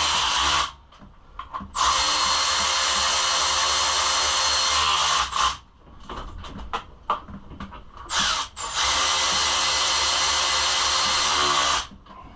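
A cordless power drill/driver runs in four bursts, driving bolts in: a short one at the start, a long one of about three and a half seconds, a brief one, then one of about three seconds. Its motor hums at a steady pitch with quiet gaps between the bursts.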